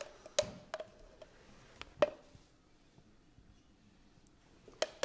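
A metal spoon clinking a few times against a small pan of hollandaise sauce while the sauce is spooned out, with short sharp clinks that ring briefly. The loudest clink comes about two seconds in and another just before the end.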